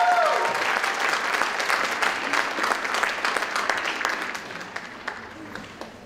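Theatre audience applauding at the end of a dance routine, with a few high cheers at the very start; the clapping gradually dies away over the last couple of seconds.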